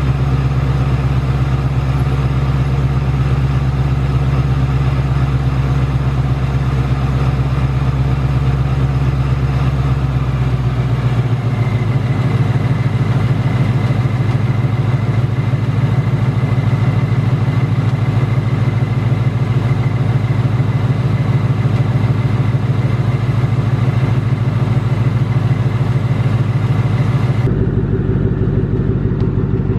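Ford Mustang GT's 5.0 Coyote V8 idling steadily, with the ticking, typewriter-like 'BBQ tick' that plagues 2018–2019 Mustang GTs and that the owner says has come back, seeming to come from the bottom end. The sound shifts abruptly about eleven seconds in and again near the end.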